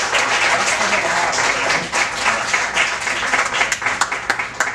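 Audience applauding, a dense patter of many hands clapping that thins to a few separate claps near the end.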